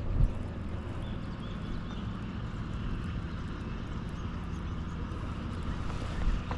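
Boat engine running steadily, a low even hum, with a short thump at the very start and another just before the end.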